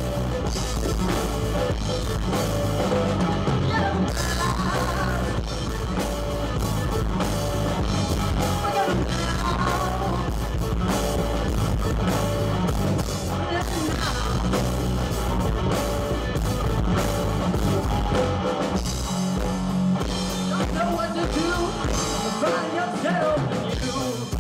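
Live rock band playing: distorted electric guitar and drum kit driving a steady beat, with sung and shouted vocals over the top.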